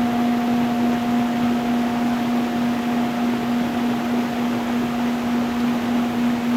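Water running over stones in a stream, an even rushing, with a steady low humming drone held unchanged beneath it.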